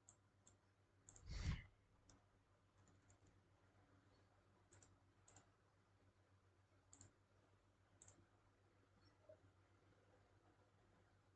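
Faint computer mouse clicks, a few spaced seconds apart, with one short, louder low thump about a second and a half in.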